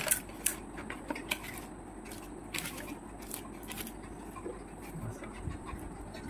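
Crisp fried pani puri (phuchka) shells crackling as they are cracked open by hand and crunched while eating: a scatter of small, sharp crackles.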